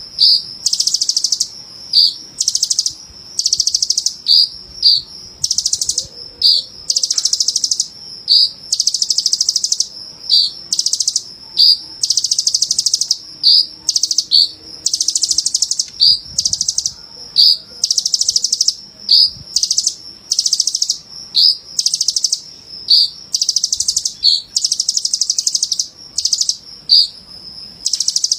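Sunbird (kolibri ninja) singing: high, fast trilling phrases, each under a second long, repeated over and over with short chips between them.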